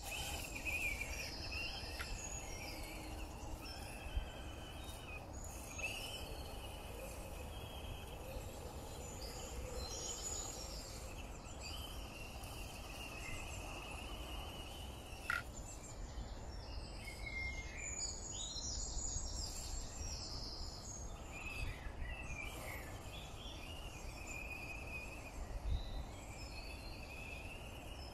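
Woodland birdsong: several small birds chirping and singing in overlapping phrases, over a steady low rumble, with a few sharp clicks.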